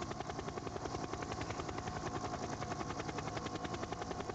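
Helicopter rotor beating in a fast, even rhythm, with a faint steady whine above it.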